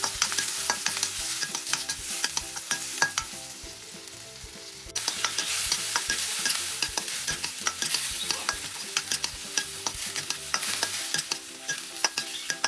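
Prawns sizzling in hot oil in a wok while a metal spatula stirs and scrapes them, with frequent sharp clicks of the spatula against the wok.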